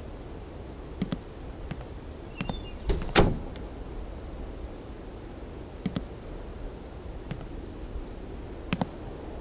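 A door being worked: clicks of the handle and latch, then a loud knock of the door about three seconds in. A few scattered footsteps follow, over a low steady background noise.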